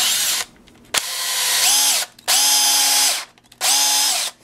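Electric drill boring a hole in a wooden board for a wire, run in four short bursts, the motor whining up to speed and winding down each time.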